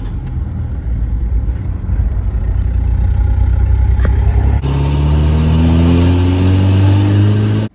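Mitsubishi Shogun's engine and loud exhaust heard from inside the cab while driving: a steady low rumble, then after a cut about halfway through, the engine note rising steadily as it accelerates, stopping abruptly at the end.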